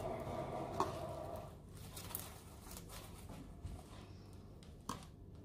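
Slime being stretched and squeezed by hand: faint, scattered soft crackles and squishes, with a small click about a second in.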